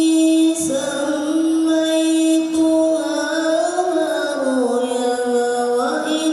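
A young man's solo chanted recitation through a microphone: long held notes that slide slowly up and down in pitch.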